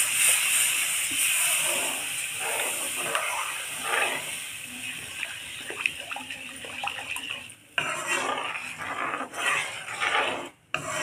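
Roasted wheat flour and ghee sizzling in a kadhai just after water has been poured in, the hiss fading over the first few seconds. A metal spoon stirs and scrapes against the pan throughout, and the sound drops out briefly twice near the end.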